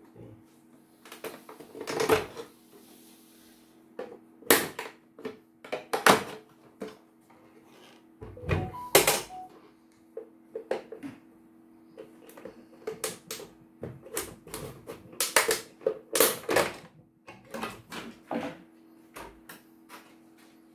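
Plastic housing of a CNY portable embroidery machine being unscrewed and pried off by hand: irregular clicks, knocks and plastic rattles, some sharp and loud, over a faint steady hum.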